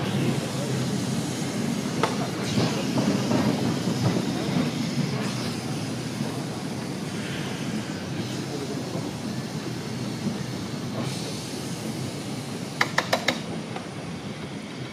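Vintage electric tram running along street track, heard on board: a steady rumble of the wheels and motors on the rails that grows quieter toward the end. A quick burst of about five sharp clicks comes near the end.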